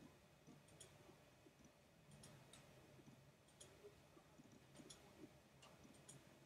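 Near silence with faint, irregular sharp clicks, some in quick pairs, about once a second, from a computer mouse, over a faint low steady hum.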